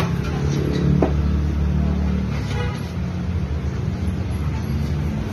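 A steady low mechanical rumble of motors running, with a single short metallic clink about a second in.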